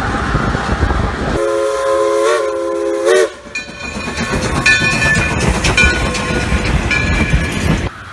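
Train rumbling, then a locomotive air horn sounding a steady chord of several notes for about two seconds. After the horn comes the rumble and clatter of a passing train, with high tones coming and going. Each change is abrupt.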